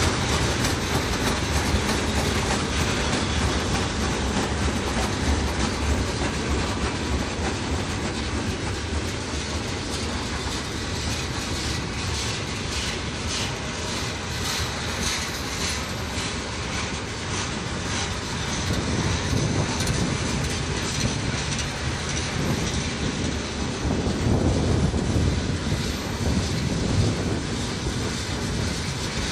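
Freight train's open-top hopper cars rolling past: a steady rumble of steel wheels on rail, with repeated clacking as the wheels cross rail joints.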